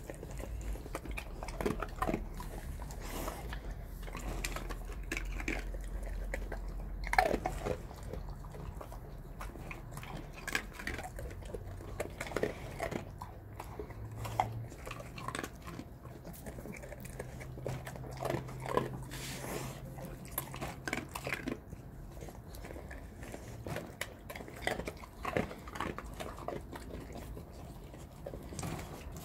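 An animal chewing: irregular crunches and clicks over a low steady hum.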